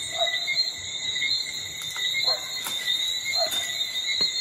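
Steady chorus of night insects: layered high-pitched trilling that pulses without a break, with a few short, faint lower chirps scattered through it.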